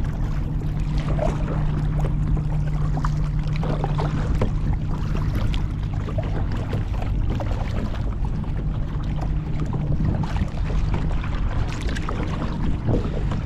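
Kayak paddle strokes splashing and dripping beside a plastic sit-on-top kayak, with many small splashes over a steady low rumble.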